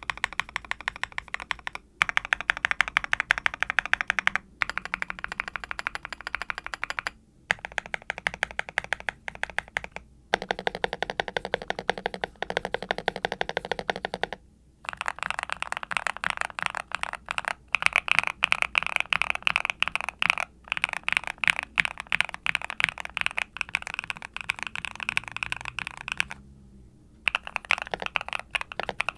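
Fast continuous typing on a Yunzii C68 mechanical keyboard with Gateron Smoothie linear switches, a steel plate and PBT keycaps, giving a deep, clacky bottom-out on each keystroke. The typing comes in runs of a few seconds with short pauses between them.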